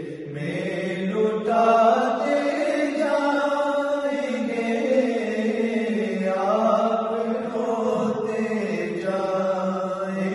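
Unaccompanied men's voices chanting a naat, an Urdu devotional song: a melodic lead line rising and falling over a steady low held note.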